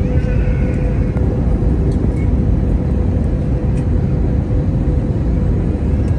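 Cabin noise aboard an Airbus A320neo: a steady low rumble with a constant hum running through it, and a brief higher tone in the first second.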